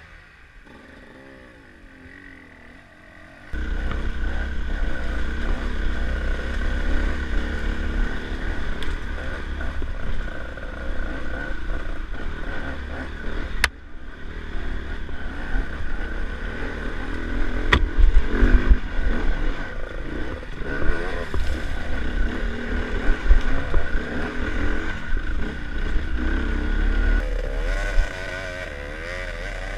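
Enduro motorcycle engines running and revving over a rough rocky trail, picked up by an onboard camera with heavy low wind rumble on the microphone and some clatter. The sound jumps suddenly louder about three and a half seconds in, changes abruptly twice more, and drops back near the end to fainter engine revs.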